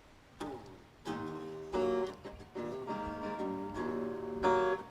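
Guitar accompaniment playing alone between the sung lines of a Hindi song: a single pluck, then picked notes and chords from about a second in, changing every half-second or so.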